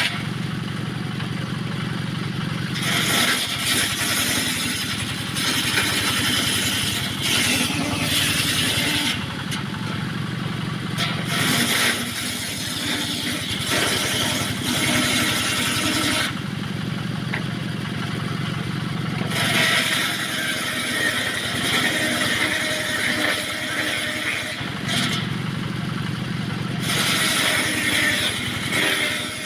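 Engine-driven circular saw running steadily, with a harsh, hissing cutting noise added whenever the blade rips through wood. The cutting comes in several passes: about 3 seconds in, again around 19 seconds, and once more near the end. Between the passes the saw runs free. The wood being cut is small offcuts being ripped into battens.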